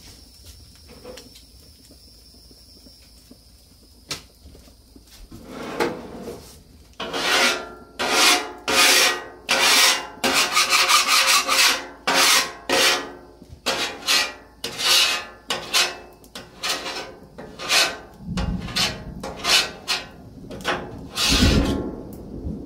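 A scraper rasping across the steel cooktop of a Blackstone flat-top griddle, cleaning it. The repeated strokes come about two a second, starting about six seconds in.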